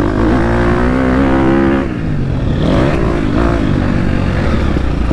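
2023 KTM 250 SX-F's four-stroke single-cylinder engine revving under load. The pitch climbs, drops sharply about two seconds in, then dips and rises again before holding fairly steady.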